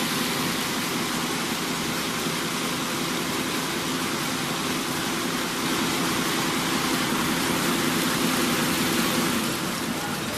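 Rope braiding machine running, its bobbin carriers whirling round the deck: a dense, steady mechanical rush over a low hum, easing a little near the end.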